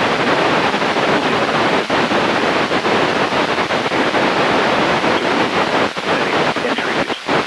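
Loud, even hiss of radio static from a weather radio on a weak NOAA Weather Radio signal. The noise drowns out the broadcast.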